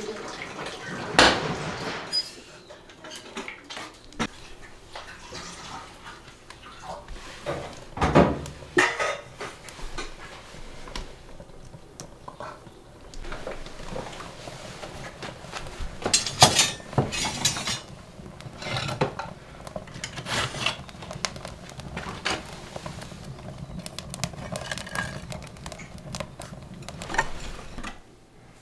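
Scattered clinks and knocks of pots and metal around a wood-fired clay stove as its fire is tended. The loudest come about a second in, around eight seconds and around sixteen seconds.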